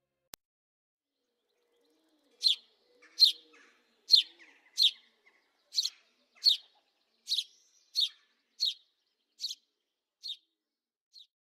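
A small bird chirping: about a dozen short, sharp chirps evenly spaced less than a second apart, growing fainter toward the end.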